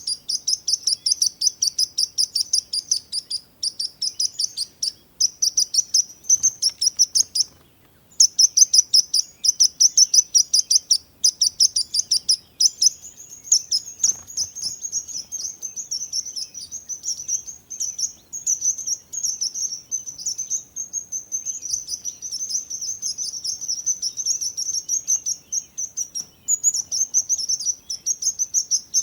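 Sparrows chirping: a fast run of short high chirps, about five a second. They break off briefly about eight seconds in, and in the second half they run together into a denser, quicker chatter.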